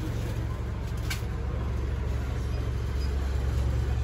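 Steady low rumble and hum of indoor market ambience, with a single sharp click about a second in.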